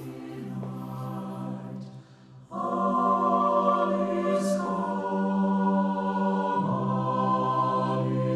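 Choir singing slow, held chords, moving to a new chord about two and a half seconds in and again near the end, with a sung 's' sound in the middle.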